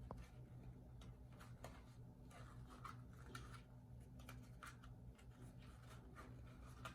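Near silence: faint, scattered clicks and rustles of a small toy surprise package being handled and opened, over a steady low hum.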